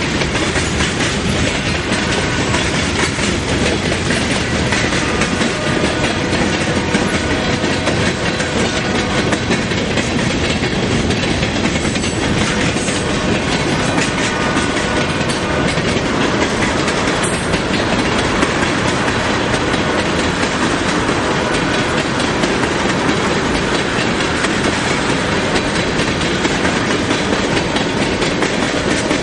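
Freight train of covered hopper cars and tank cars rolling past: steady, loud noise of steel wheels on rail, with a fast patter of clicks from the wheels.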